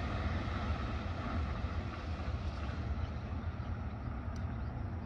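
Steady outdoor rumble: wind buffeting the microphone over a distant hum of traffic.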